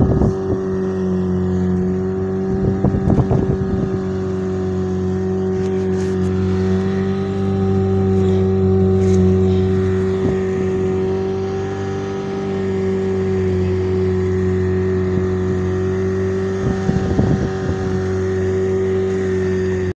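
Outboard motor of a small fishing boat running at a steady, constant speed, with a few brief knocks a few seconds in and near the end.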